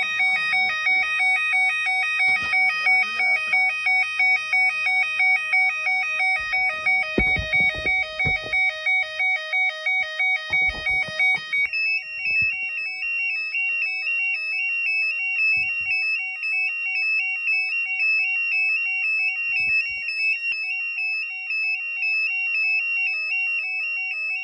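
Burglar alarm siren going off with a fast two-tone warble, a high pair of notes and a lower pair flipping rapidly back and forth without a break. About halfway through the warble shifts slightly in pitch and pattern, and a few short knocks and clicks of handling come through in the middle.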